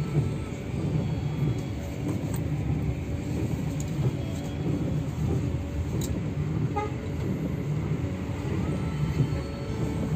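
Steady low rumble of a double-decker coach's engine and tyres while driving, heard from inside the passenger cabin.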